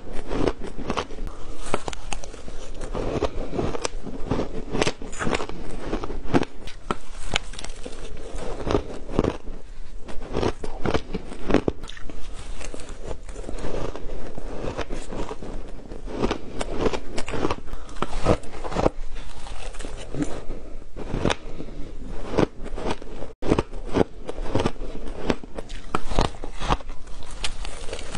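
Shaved ice being bitten and chewed, picked up close by a clip-on microphone: a dense, continuous run of sharp crunches and crackles.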